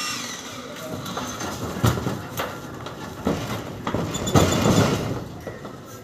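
An electric jackhammer's motor whine slides down and stops at the start. Then come irregular clanks and thumps of footsteps and loose rubble on corrugated metal roof sheets.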